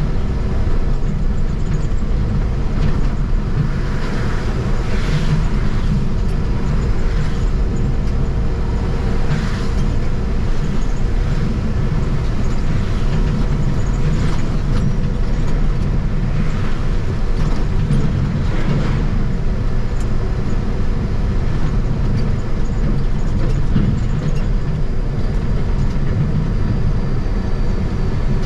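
Truck running down the road while towing a trailer: a steady low engine-and-road drone with a constant tone, and a few brief faint swells now and then.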